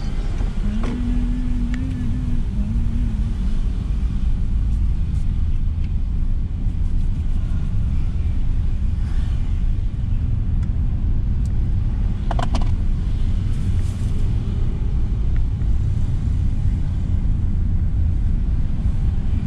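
Car driving along a street, its steady low road and engine rumble heard from inside the cabin.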